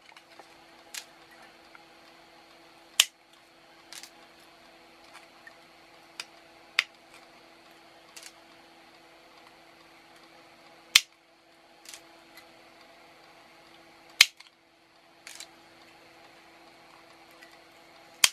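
Side cutters snipping the excess wire leads of components off the back of a soldered circuit board: a sharp snip every one to four seconds, some much louder than others.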